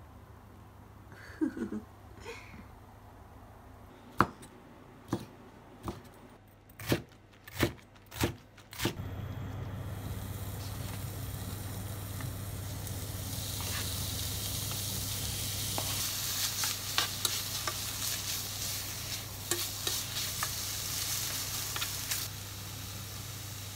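Sliced pork frying in a non-stick pan on an induction hob. The sizzling starts about a third of the way in and builds, with clicks of the utensil against the pan as the meat is stirred. Before the sizzling, a few sharp knocks on the pan.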